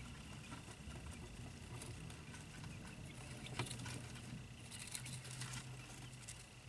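Faint, scattered light taps and rustles of day-old quail chicks moving about, with a brief rustle about halfway through, over a low steady hum.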